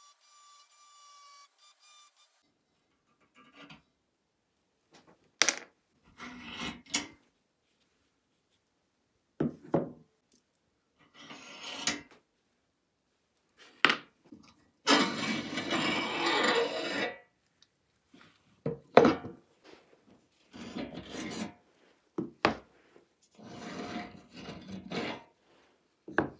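Rusty steel axle of a thick sheet-metal toy truck worked by hand in its chassis holes and wheel hubs: rusty metal scraping and rubbing off and on, with a few sharp clicks and knocks of the parts. The longest scrape, about halfway through, lasts around two seconds.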